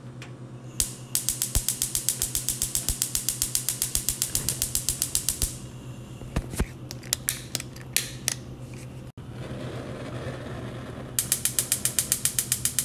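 Gas stove's spark igniter clicking rapidly and evenly, about five clicks a second, as the burners are lit. There are two long runs of clicks with a few single clicks between them, over a low steady hum.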